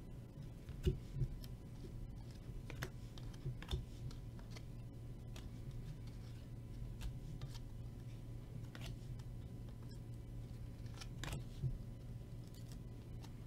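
A stack of baseball cards being handled and flipped through, card by card: faint, scattered clicks and snaps of card edges, with the sharpest about a second in and near the end, over a low steady hum.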